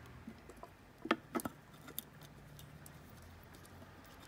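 Light clicks and taps of an outboard's reed plate and block being handled as the reed plate is worked off by hand. The loudest are a quick cluster about a second in and a single click near two seconds.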